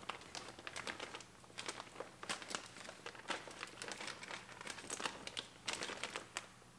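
Plastic door water-barrier sheet crinkling in faint, irregular crackles as the door wiring harness is pushed through it and the sheet is handled against its sticky sealant.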